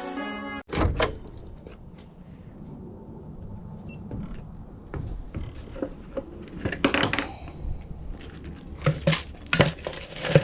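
Brass intro music stops abruptly, followed by a thump. From about five seconds in come irregular clatter and knocks of plumbing supplies and tools being handled and set down.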